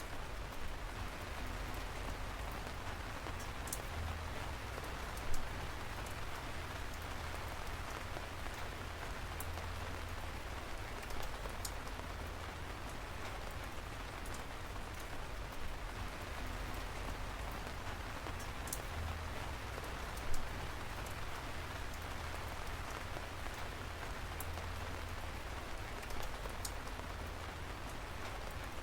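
Steady rain falling, with scattered sharp drop taps through it, two of them louder about 5 and 20 seconds in.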